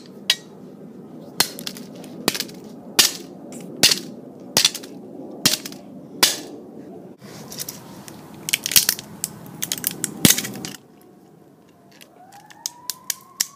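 Repeated sharp blows of tongue-and-groove pliers smashing a cheap mobile phone on concrete, about one strike every second, then a quicker run of cracking and crunching as the casing breaks. Near the end a siren starts to rise in pitch.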